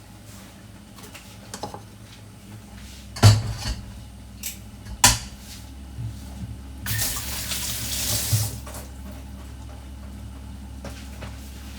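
Kitchen tidying: two sharp clatters of kitchenware being set down, then a tap running for about a second and a half.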